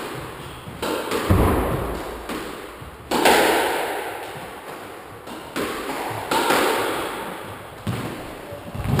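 Squash ball being struck by rackets and smacking off the court walls in a rally: a series of sharp hits at irregular intervals, each ringing out in the court's echo.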